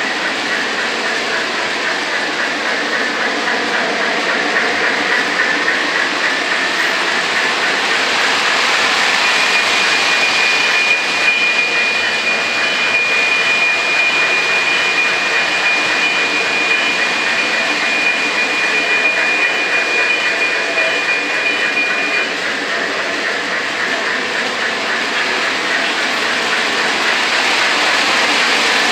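O gauge model freight trains running on three-rail track: a steady rolling rumble of wheels and motors. A thin steady high tone sounds through the middle for about twelve seconds.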